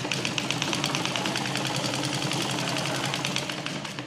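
Sewing machine stitching a seam through lehenga fabric at a steady, rapid, even rhythm, then stopping at the end.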